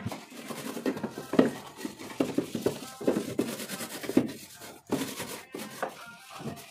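Soapy sponge scrubbing the plastic door shelves and liner of a refrigerator: irregular rubbing strokes, with plastic parts being handled.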